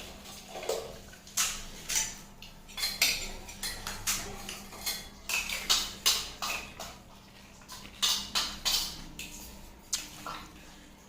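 Close-up sounds of eating fuchka (pani puri): an uneven string of short, sharp, crisp crunches and clicks, roughly two a second.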